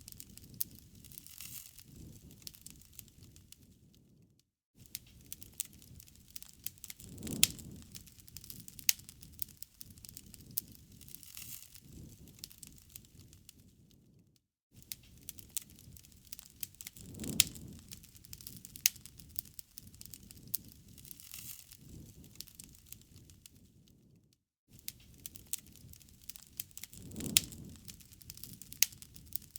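Wood fire burning, crackling and popping with sharp snaps over a low rumble of flames. The same ten-second stretch repeats, with a brief dropout to near silence between repeats.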